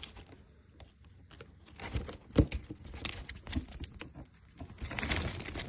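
Packaging being handled by hand: scattered crinkles and small clicks, one louder knock about halfway, and a short burst of rustling near the end.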